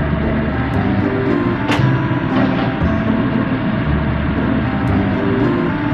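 Background music: held low bass notes changing in steps, with a few sharp percussive hits.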